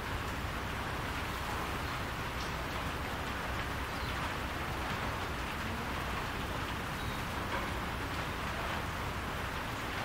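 Steady rain falling on a barn roof: an even, unbroken hiss.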